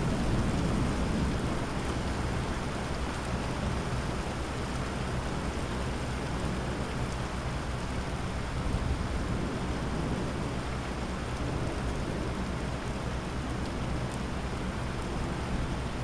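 Heavy rain pouring steadily in a thunderstorm, with a low rumble of thunder dying away in the first couple of seconds.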